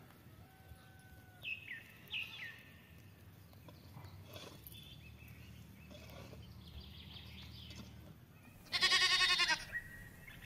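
A single loud, wavering bleat about a second long, starting near the end, from the grazing flock of goats and sheep. Two short falling chirps come about a second and a half and two seconds in.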